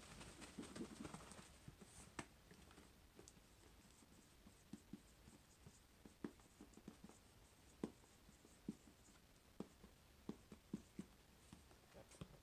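Red dry-erase marker writing on a small whiteboard. A burst of rubbing comes in the first two seconds, then scattered light taps and scratches of the marker tip on the board.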